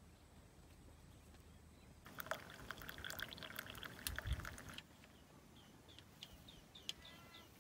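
A hot drink is poured from a kettle spout into a metal camping mug, splashing and trickling for about two and a half seconds after a near-quiet start. Near the end, a bird gives a series of short, falling chirps.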